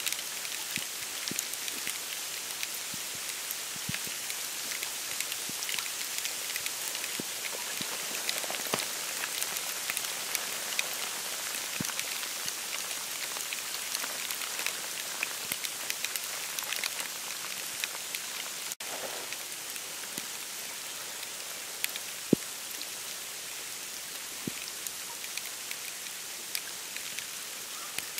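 Falling snow pattering steadily on dry reeds, bare branches and the boardwalk of a wetland: a dense hiss of tiny ticks, with a few louder single drips, the sharpest about two-thirds of the way through.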